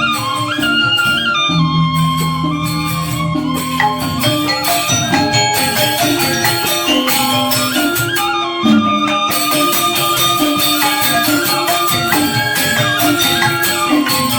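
Balinese gamelan angklung ensemble playing, with a four-tone reong gong-chime set and a four-tone bamboo grantangan. Quick interlocking melodic patterns run over a steady low line, and a dense high jingling shimmer thickens about five seconds in.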